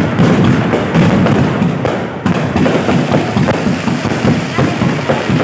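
Fireworks going off in a dense, unbroken run of cracks and thuds.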